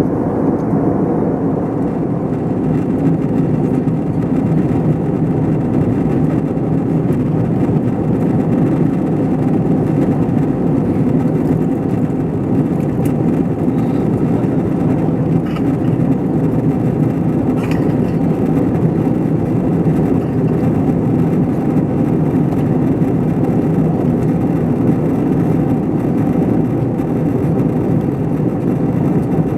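Steady drone of an Airbus A321ceo cabin in flight: jet engine and airflow noise, even and unchanging, with a few faint clicks near the middle.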